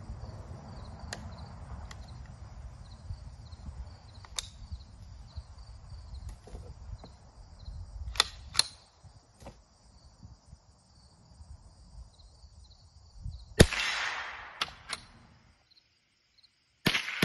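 Small metal clicks from a Savage A22 semi-automatic .22 rimfire rifle being handled and its magazine changed, over steady insect chirping. About 13 seconds in comes one sharp gunshot, the loudest sound, and near the end rapid semi-automatic fire begins, about four shots a second.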